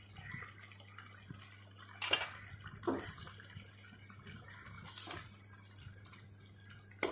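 Wet splashing and slopping in a steel pot of simmering kuzhambu as ground coconut-coriander paste is poured in from a steel tumbler and stirred with a steel spoon. There are a few soft splashes and a sharp tap near the end.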